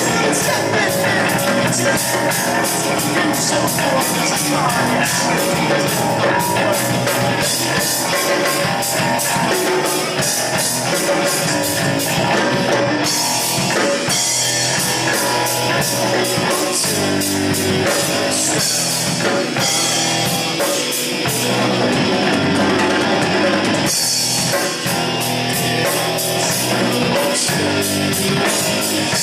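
Rock band playing live: drum kit with steady cymbal hits and guitar, with some singing, loud and continuous, in a poor-quality recording.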